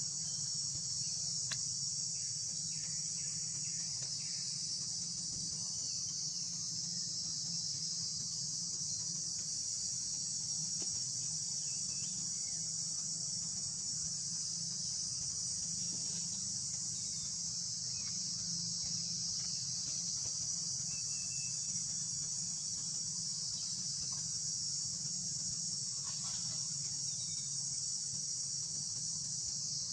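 Steady, unbroken high-pitched insect chorus, over a low steady hum.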